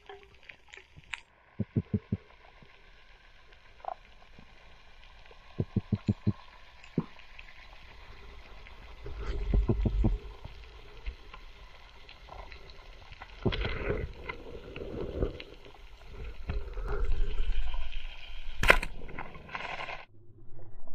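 Underwater sound through a camera in a waterproof housing: a faint steady hiss broken by short runs of four or five quick sharp clicks, then several surges of rushing water as the diver swims up through open water, with one loud sharp snap near the end.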